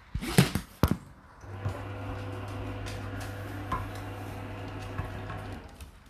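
Dishes knocking against each other and the dishwasher rack, a few sharp clatters within the first second. Then a steady electrical hum starts and runs about four seconds before cutting off.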